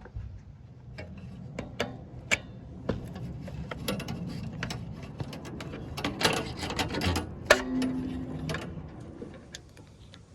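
Hand tools and metal parts being handled while a lawn mower is worked on: a run of sharp clicks and knocks, thickest about six to seven seconds in.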